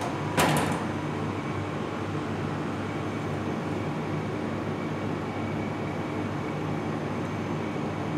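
Steady low hum of kitchen machinery, with one short loud clatter about half a second in.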